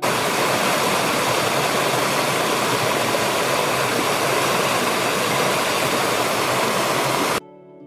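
Stream rushing over rocks and small cascades: a steady, loud rush of water that cuts off suddenly near the end.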